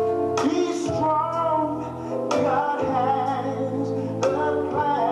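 A gospel song playing, a woman singing long held notes over bass and backing instruments.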